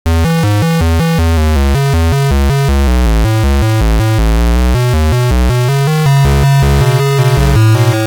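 Loud synthesizer music of a mock emergency-alert alarm, starting suddenly: a fast run of stepped notes, about four a second, over heavy bass, moving to longer held bass notes in the second half.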